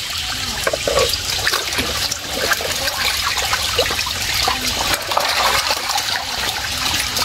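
Water sloshing and splashing steadily, with many small splashes throughout.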